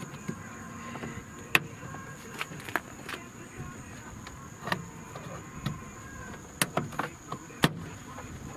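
A plastic trim tool prying at the 2007 Honda Civic's front door trim panel, with irregular sharp clicks and snaps as the panel's plastic clips are worked loose; the snaps come thicker near the end.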